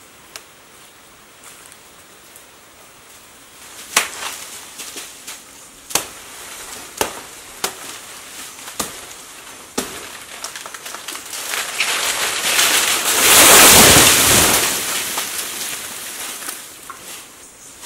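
Sharp cracks like snapping wood, a few seconds apart, then a loud swelling rush of thrashing leaves and branches. It peaks about two-thirds of the way through and dies away.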